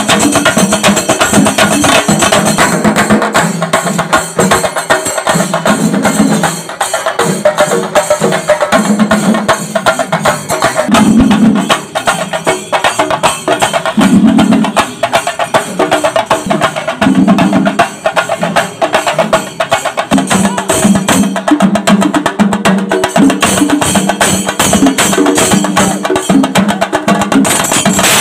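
A large ensemble of chenda drums, Kerala cylindrical drums beaten with sticks, playing a loud, dense, fast rhythm of stick strokes with heavier beats pulsing through it.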